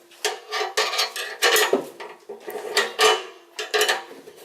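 Metal exhaust parts and tools being handled: a run of irregular metallic clanks and clinks, some leaving a ringing tone.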